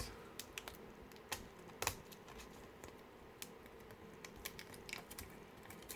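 Light, irregular clicks and taps of small plastic surprise-egg capsules and toys being handled.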